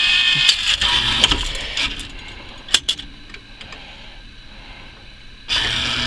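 Claw machine mechanism running: loud mechanical noise that drops quieter after about two seconds, a few sharp clicks about three seconds in, then steady mechanical noise with a low hum returning loud near the end as the claw moves.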